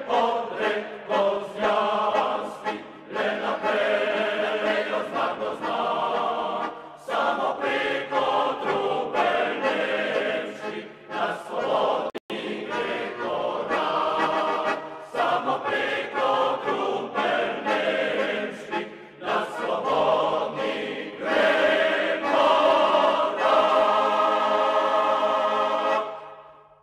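Choral singing as background music, with sustained voices, fading out near the end.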